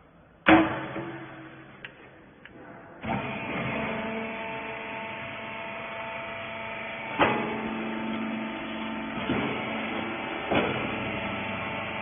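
A sharp metal clunk about half a second in, then from about three seconds the electric motor and hydraulic pump of a small horizontal rags baler running steadily with a whine, broken by a few sharp knocks from the press.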